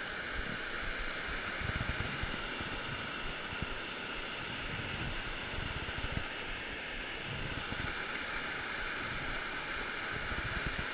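Small waterfall and rapids rushing steadily over rocks in a mountain stream.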